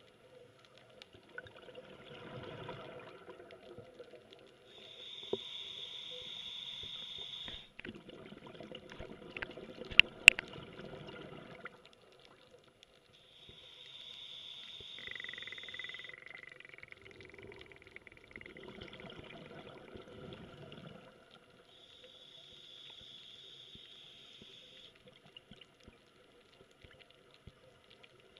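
Scuba diver breathing through a regulator underwater: hissing inhalations of about three seconds each alternate with bursts of exhaled bubbles, in a slow even cycle. Two sharp clicks come about ten seconds in, during an exhalation.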